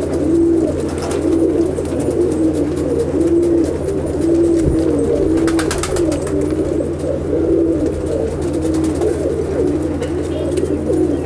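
Andhra domestic pigeons in a loft cooing over and over, one low coo after another through the whole stretch. A steady low hum runs underneath, with a few faint clicks.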